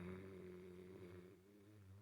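The tail of a person's snore: a low, pitched drone fading steadily and stopping right at the end.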